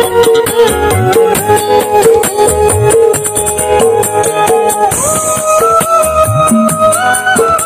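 Loud music played through a pair of 10-inch speaker cabinets with twin tweeters, driven by a First Class FCA4700DSP power amplifier as a sound test. A held melody, which steps up in pitch about five seconds in, runs over fast, even percussion ticks and a bass note that repeats about once a second.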